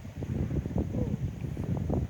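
Low rumble and irregular knocking of a moving goods train, mixed with wind buffeting the microphone.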